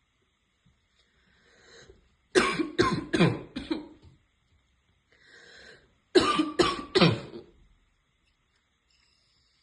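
A woman's barking cough in two fits: a breath in, then four harsh coughs in quick succession, another breath in about halfway through, then three more coughs.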